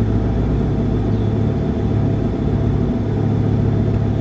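Big-turbo Volvo 850R's five-cylinder engine idling steadily with a low, even rumble.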